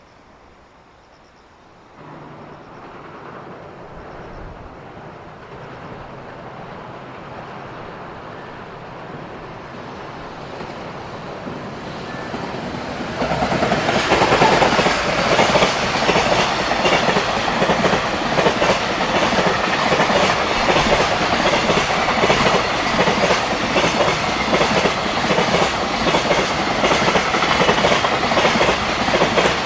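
A freight train approaching, growing steadily louder for about ten seconds, then passing close from about 13 seconds in with a loud, steady rumble and rapid clickety-clack of wagon wheels over the rail joints.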